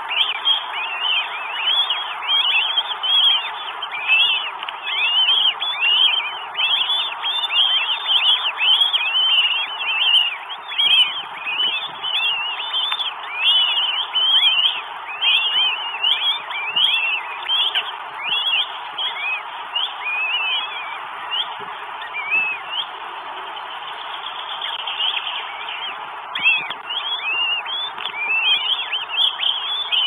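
Northern goshawk calling at the nest: a rapid series of short, high notes that rise and fall, about two or three a second, with a pause of a few seconds about three quarters of the way through before the calls start again. A steady hiss lies under the calls.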